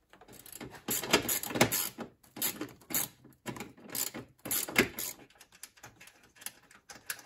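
Crimping pliers working wire connectors, clicking and rasping in several short bursts while two wires are pressed into one terminal.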